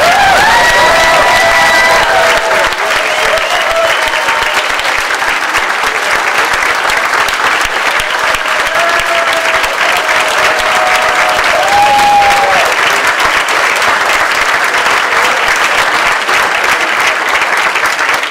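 An audience applauding loudly and at length, with a few voices calling out over the clapping; the applause dies away at the end.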